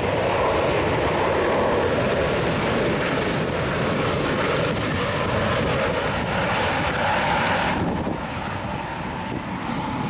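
Boeing 777-300 twin jet engines heard on the landing rollout: a loud, steady rush that eases a little near the end as its higher hiss drops away.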